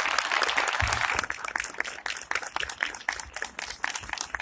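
Audience applauding: dense clapping at first, thinning after about a second into scattered claps.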